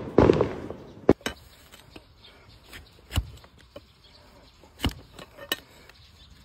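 Large flat hoof-trimming blade cutting through a donkey's hoof on a wooden stool: a brief scuffing noise at the start, then a handful of separate sharp chopping knocks as the blade cuts through and strikes the stool top.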